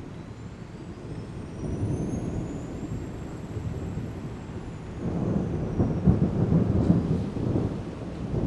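Thunder rumbling through a heavy thunderstorm, swelling louder about five seconds in. A faint high whine rises and then falls in pitch over the first few seconds.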